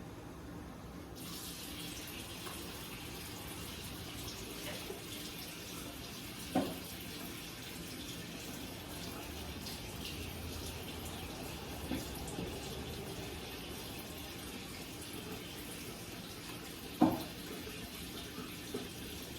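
Kitchen tap running steadily, filling a measuring cup with water for a muffin mix; the water comes on about a second in. Two louder knocks, about ten seconds apart, sound over the running water.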